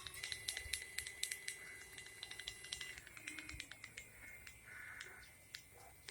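Faint, quick irregular clicking and knocking from a Q100-type geared e-bike hub motor as it spins, over a steady whine. This is the knock inside the motor wheel. About three seconds in, the whine changes and the clicking thins out.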